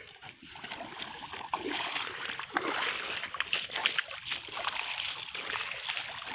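Shallow river water splashing and sloshing irregularly as hands grope in the water under a boulder and a hand net is worked against it. The splashing picks up about half a second in.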